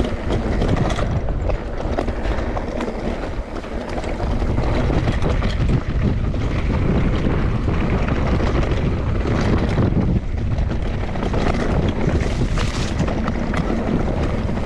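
Wind buffeting the microphone of a mountain bike rider's camera on a rough dirt trail, with tyre noise and many short rattles and clicks from the bike.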